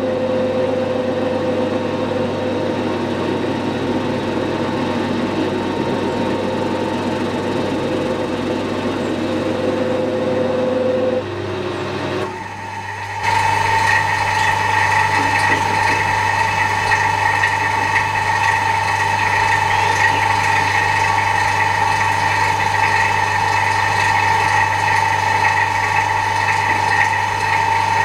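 Metal lathe running, spinning a steel spindle in its chuck while a bearing bump tool rolls over the knurled bearing journal to press it down. About twelve seconds in the sound dips briefly, then a steadier, higher-pitched whine takes over.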